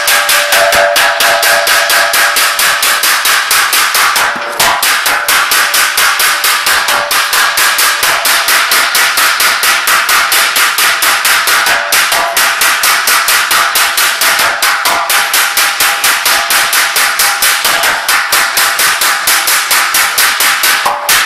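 Several hand hammers beating a large riveted sheet-metal dome in rapid alternating blows, several strikes a second, each blow ringing with a metallic clang. There is a brief break in the hammering about four seconds in.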